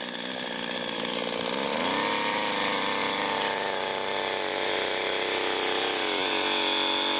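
Small petrol engine of a portable capstan winch running, revving up about two seconds in and then holding a steady high pitch.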